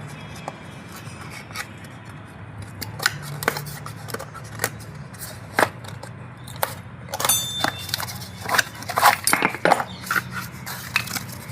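Metal brake pads and small parts being handled, giving irregular clinks, taps and scrapes that come thickest about two-thirds of the way in, one with a short metallic ring. A steady low hum runs underneath.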